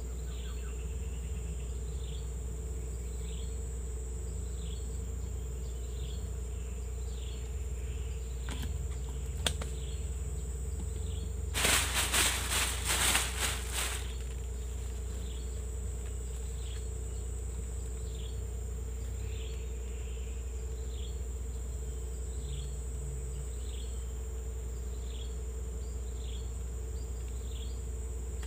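Forest insects droning steadily at a high pitch, with a short chirp repeating about every second and a half. About twelve seconds in comes a two-second burst of crackling noise.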